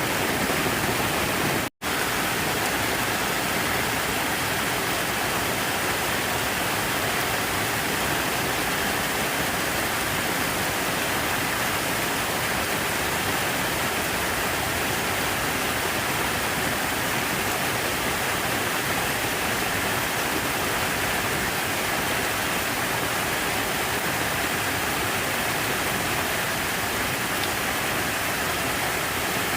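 Steady, even rush of falling water, dropping out completely for an instant about two seconds in.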